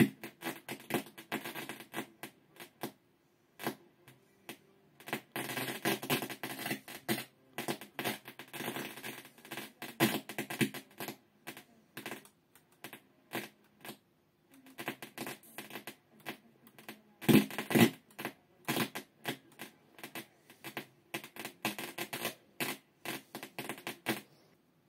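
Sony STR-434L stereo receiver playing its radio tuner very badly: harsh, scratchy crackling that cuts in and out irregularly, with several dead gaps. This is the sign of a fault in the receiver's audio path.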